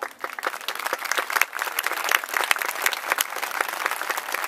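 Audience in stadium stands applauding: dense, irregular clapping that breaks out suddenly, builds over the first second and then holds steady.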